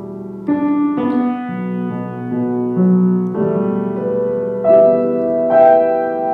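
Grand piano playing slow, sustained chords, with a new chord struck every second or so.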